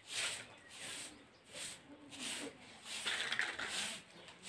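Short grass broom (jhadu) sweeping a cement floor in quick strokes, a soft swish roughly every half second to a second.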